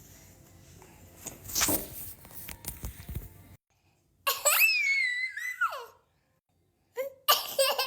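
A toddler's high voice squealing and babbling, including one long squeal that glides and then falls steeply in pitch in the middle, with shorter squeaky sounds near the end.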